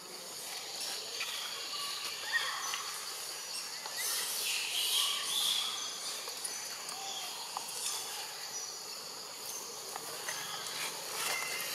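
Outdoor woodland ambience: a steady high insect drone with scattered bird chirps, a few louder chirps about four to six seconds in.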